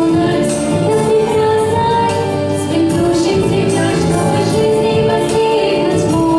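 A vocal ensemble singing a song, with held melodic notes over steady instrumental accompaniment.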